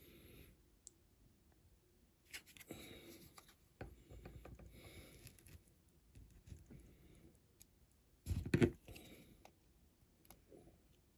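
Small clicks and scraping from handling a diecast toy car and its metal base plate while a rivet is fitted back in. A single louder bump comes about eight seconds in.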